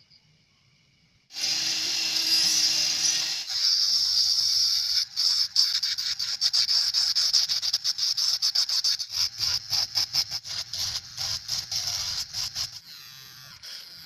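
A small handheld mini grinder (rotary tool) with a sanding bit, grinding the plastic of a gas lighter. Its high whine starts about a second in and holds steady, then from about five seconds in it pulses rapidly, several times a second, as the bit bites the plastic, and it drops lower near the end.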